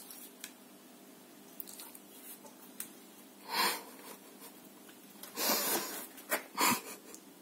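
Pit bull puppy in a plastic cone collar sniffing and huffing: a few short, breathy bursts, one about halfway through and a quick cluster near the end.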